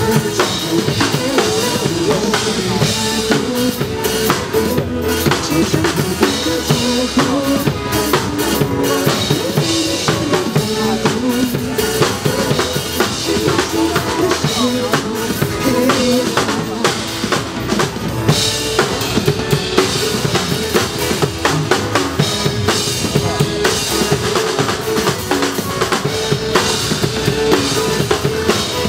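Drum kit played over a pop song's backing track, in an instrumental stretch with no vocals: a dense, steady stream of drum hits over the music.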